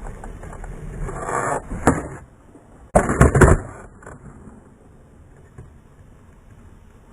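Skateboard wheels rolling, a sharp pop of the tail about two seconds in, then a loud clatter of the board hitting the ground a second later, with the rolling dying away after it.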